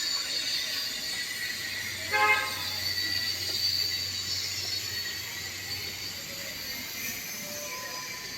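Steady rain hiss, with one short horn honk about two seconds in.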